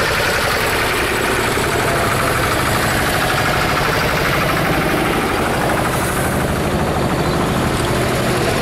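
A column of old tractors driving slowly past, their engines running together in a steady, rapid firing beat.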